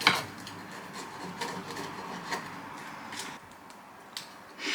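A sharp click at the start, then faint scattered taps and rubbing sounds of small things being handled.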